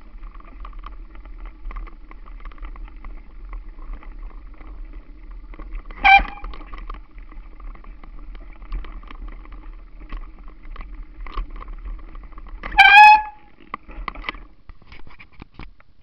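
Mountain bike rolling over a forest trail, tyres and frame rattling steadily, with two short, loud squeals of its brakes about six and thirteen seconds in; the rolling noise stops soon after the second squeal as the bike halts.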